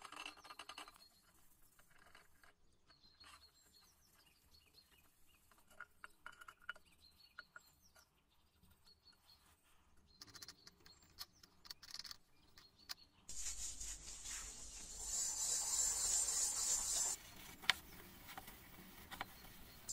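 Faint brush strokes and light taps on a copper kettle, then steel wool scrubbing a copper kettle lid with a steady hiss for about four seconds, easing off near the end with a single sharp click.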